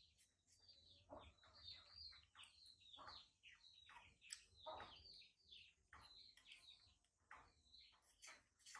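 Faint, rapid run of short high-pitched chirps, several a second, each falling in pitch.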